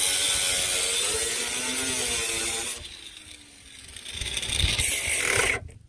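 Angle grinder cutting through a rusted steel rocker panel, a loud steady whine and grinding. About three seconds in it comes off the metal and winds down, then runs up again briefly and cuts off suddenly just before the end.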